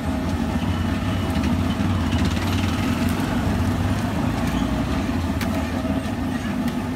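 Steady low engine drone of idling motor traffic, such as auto-rickshaws, on a busy street.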